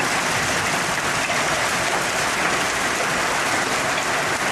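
Hail falling heavily and steadily, a dense, even rush of hailstones striking the ground.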